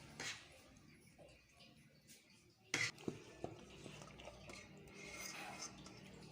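Kitchen cookware and utensils being handled: one sharp clack about three seconds in, then two lighter clicks, over quiet room sound.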